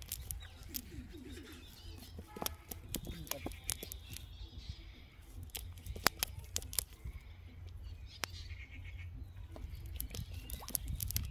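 Fingers working a fishing net to free caught fish from the mesh: irregular sharp clicks and snaps of the net threads being pulled, over a steady low rumble. Birds chirp faintly twice.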